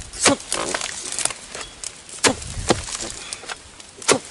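Oil palm harvesting chisel on a long wooden pole chopping into the base of a low palm below the fruit bunch: a string of sharp strikes, roughly one a second, with smaller ticks between.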